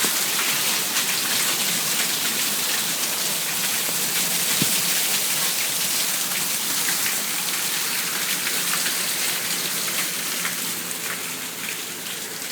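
Rain pouring down and splashing onto a balcony, fed by gutters that overflow onto it: a steady hiss of rain dotted with many small drop ticks, easing off slightly near the end.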